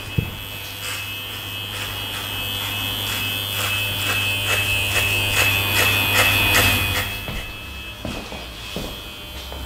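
Electric hair clippers buzzing steadily as they cut short hair. The buzz stops about seven seconds in.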